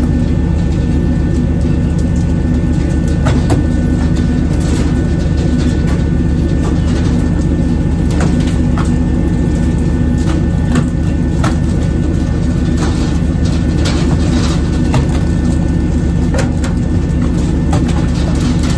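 Fishing boat's engine running with a steady low drone, with scattered sharp slaps and knocks as skipjack tuna are flung out of the water and land on the wooden deck.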